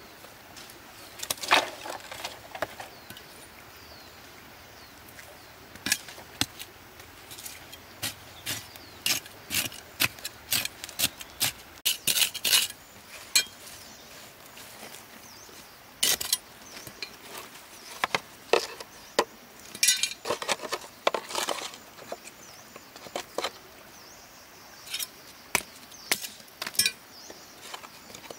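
Irregular sharp clacks and knocks of rocks and dry sticks being handled and set down on the ground while a small stone fire pit is laid for a campfire, some coming in quick clusters.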